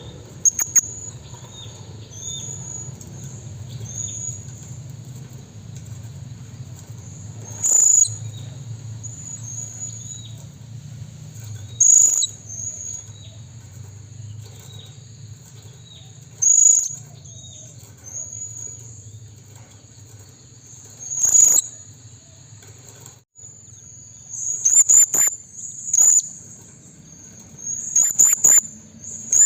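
Blue-crowned hanging parrot (serindit) giving short, sharp, shrill calls, one every four or five seconds and then a quicker run of them near the end, over a steady high-pitched chirping trill.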